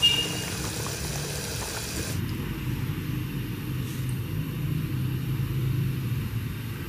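A steady low rumble with a brief high-pitched ping right at the start.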